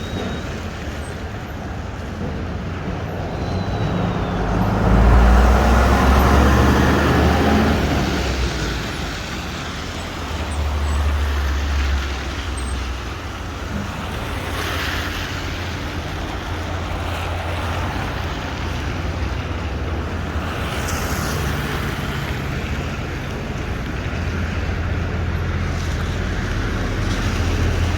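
Street traffic on a wet road in the rain: a steady hiss of tyres and engines, with one vehicle passing close about five seconds in, the loudest moment.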